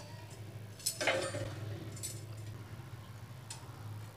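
Stainless steel tongs clicking and clinking a few times, sharpest about a second in and again about two seconds in, as a litti is turned in them over a gas burner flame, over a steady low hum.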